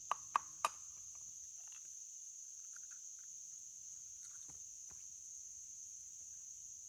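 An egg rapped three times in quick succession against a hard edge to crack its shell, over the steady high chirring of crickets.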